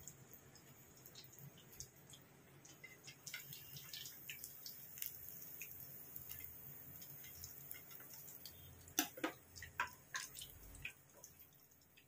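Faint crackling and sizzling of hot oil in a frying pan as fried fish pieces are lifted out, with scattered small pops and a few sharper clicks of a metal spatula about nine seconds in.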